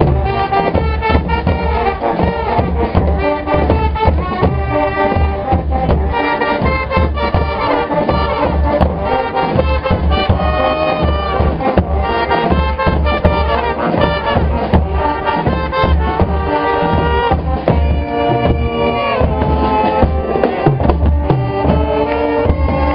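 Brass band playing a tune, horns over a strong, pulsing low bass.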